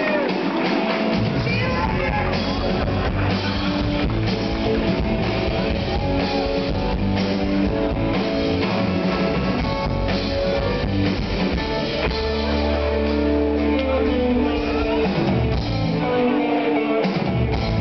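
Live rock band playing loud and amplified: electric guitar, keyboards and drum kit over a heavy held bass, which drops out near the end.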